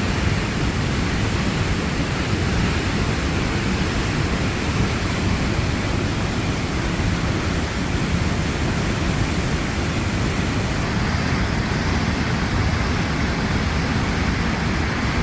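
Rushing whitewater of the McKenzie River in spring flood, a loud, steady roar.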